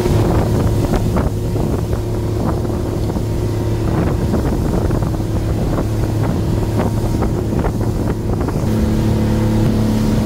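Motorboat engine running steadily underway, with irregular knocks of the hull on the chop and wind on the microphone. The engine note shifts slightly about nine seconds in.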